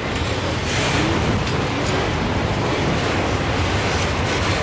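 Autorack freight cars rolling past close by: the steady noise of steel wheels running on the rails.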